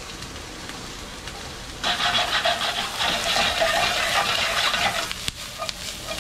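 Diced onions going into hot oil in a nonstick frying pan: a quieter hiss, then about two seconds in a sudden loud, steady sizzle as the onions start to fry.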